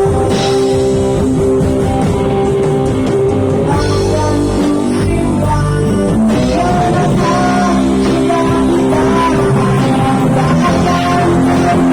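A rock band playing during a sound check: guitar over bass and drums, loud and continuous, with a melodic line that moves in pitch from about six seconds in.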